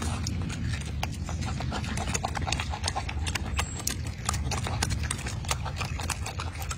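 Golden snub-nosed monkey chewing juicy orange segments close to the microphone: rapid, irregular wet smacking and clicking, over a low steady rumble.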